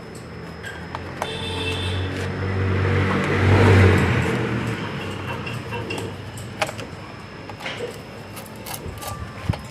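A motor vehicle passing by: engine and road noise swell to a peak about four seconds in, then fade. A few light clicks sound throughout.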